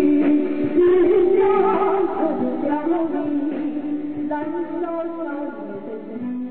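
Taiwanese opera (gezaixi) music: a sung melody with held, wavering notes over instrumental accompaniment, gradually growing quieter.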